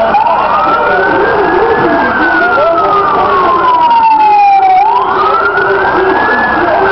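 Fire-service emergency vehicle siren wailing. The pitch climbs over about two seconds, slides slowly down over about three, then climbs again near the end.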